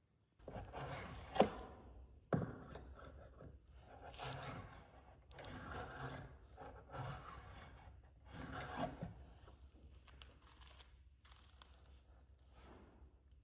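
A hand tool rubbing and scraping on wood in about half a dozen strokes, with a few sharp clicks, fading after about ten seconds.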